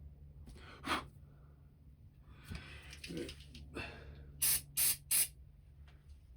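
Short spray blasts hissing into a chainsaw carburettor's jets and passages to clean them out. There is a single blast about a second in, then a run of three quick, louder blasts near the end.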